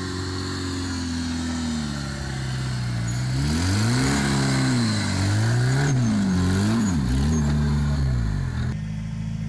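Off-road trial vehicle's engine running at low revs, then revved up and down three or four times in quick blips from about three and a half seconds in, before settling back to a steady low note.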